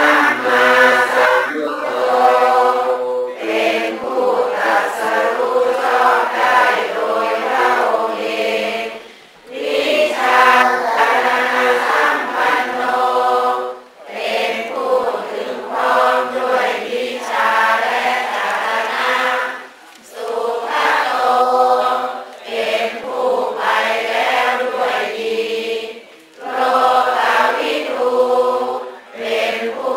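A group of voices chanting in unison, in held phrases a few seconds long with short breaks between them.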